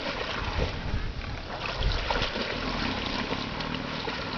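Water sloshing and splashing as a Bengal tiger wades through a shallow pond, with wind rumbling on the microphone.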